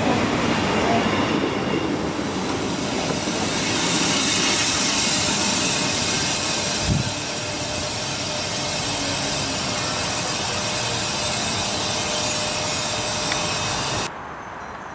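SBB electric passenger trains: a multiple unit rolling past along the platform with a steady rushing hiss, then, after a short thump about seven seconds in, the steady running noise of another train at a platform. The level drops suddenly shortly before the end.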